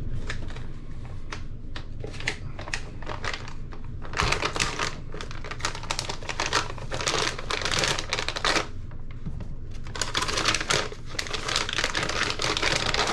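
A packet of RC crawler tires being handled and opened: a run of small clicks and crackles, with three longer bursts of plastic rustling about four seconds in, around seven to eight seconds, and around ten seconds.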